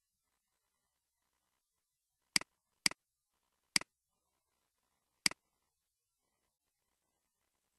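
Computer mouse clicking four times, each a quick press-and-release double tick, the first two close together and the others spaced a second or more apart.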